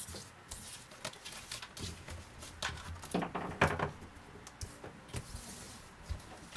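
Tarot cards being swept together and slid across a wooden tabletop by hand: papery rustling and sliding, with scattered light taps and clicks, loudest about three seconds in.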